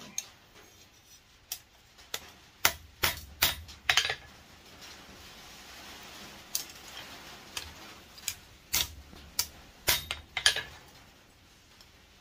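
Light hammer taps on a small pair of forged steel tongs against an anvil, about a dozen sharp metallic strikes in two bursts with a pause of about two seconds between them, some leaving a brief ring.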